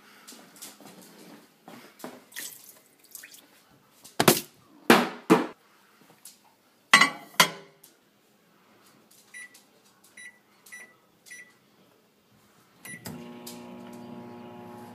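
Microwave oven loaded and started: loud knocks and clatter as the plate goes onto the turntable and the door is shut, then five short keypad beeps about two-thirds of a second apart, and about thirteen seconds in the oven starts running with a steady hum.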